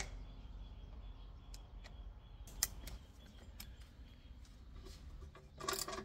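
Small clicks and taps of a hand screwdriver on the pump's plastic control box: one sharp click at the very start, a few single clicks over the next few seconds, and a quick cluster of rattling clicks near the end.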